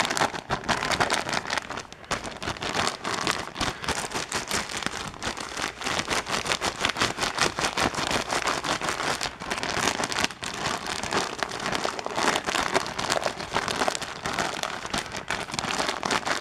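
Plastic zip-top bag crinkling and crackling steadily as a foam air-filter pre-filter is kneaded inside it by hand, working oil through the foam so it will hold dust.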